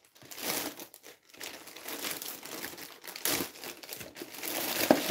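Thin clear plastic bag crinkling and rustling in irregular spurts as it is pulled and pushed off by hand, with a brief sharp tap near the end.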